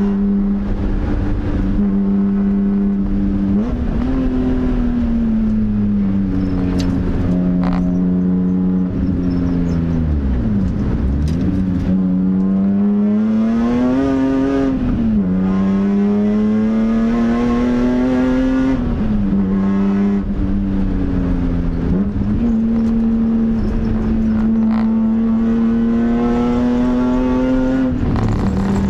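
BMW M3 race car's engine heard from inside the cabin on a hot lap. The revs climb and fall back repeatedly with gear changes, with a deep drop about ten seconds in as the car slows for a corner, and a sharp climb and fall around fourteen seconds in.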